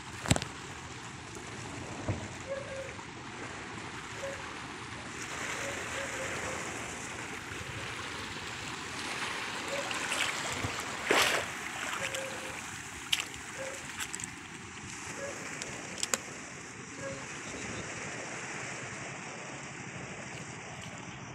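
Seawater washing and lapping steadily, with a few sharp splashes and knocks scattered through it, the loudest about eleven seconds in.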